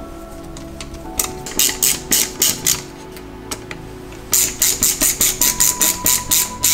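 Ratcheting screwdriver clicking as a screw is tightened, a chattering that sounds like a duck laughing. It comes in short runs, slower at first, then after a pause a faster run of about four to five clicks a second.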